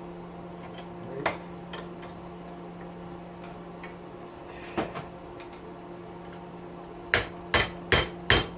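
Hammer blows on metal, knocking a stubborn bearing out of an electric weed wacker's motor housing. A couple of scattered taps come first, then a quick run of ringing strikes near the end, over a steady low hum.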